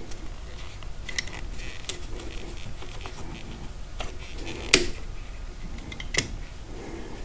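Scattered light clicks and taps of a motorcycle cup holder being handled and turned on its mount, with one sharper click about five seconds in.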